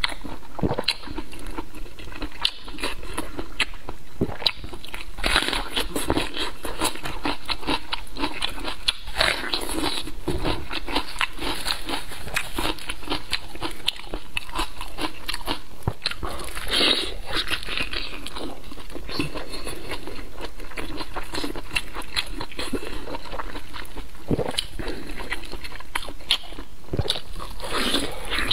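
A person biting and chewing mouthfuls of soft spicy braised pork intestines (huachang), with a steady run of small wet clicks and smacks.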